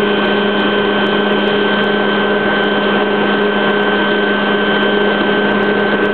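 Helicopter in flight, heard from inside the cabin: a loud, steady engine and rotor drone with a steady whine on top that holds an even level throughout.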